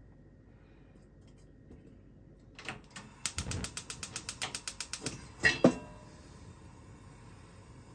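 Gas stove's spark igniter clicking rapidly, about nine clicks a second for nearly two seconds, until the burner lights. Then two loud knocks from the iron wok being moved on the burner grate, followed by the steady hiss of the gas flame.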